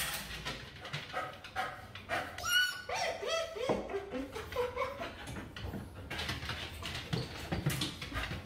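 A husky giving a run of whining, howl-like cries with sliding pitch, the breed's typical 'screaming' protest at being groomed. After about four and a half seconds the cries stop and only fainter rustling noises remain.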